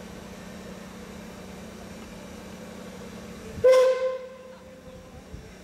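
Steam locomotive's whistle giving one short blast about three and a half seconds in: a clear tone with overtones that cuts in sharply and fades away over about a second. A steady low hum runs underneath.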